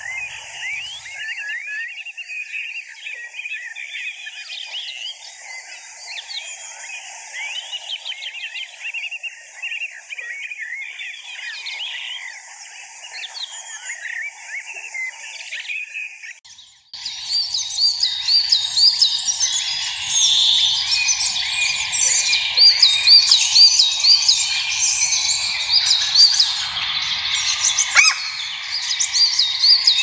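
European goldfinches twittering and calling: the caged decoy goldfinch at a clap trap and birds answering it, a dense run of quick, tinkling chirps. About 17 s in the sound cuts to a closer, louder chorus of rapid, repeated chirps.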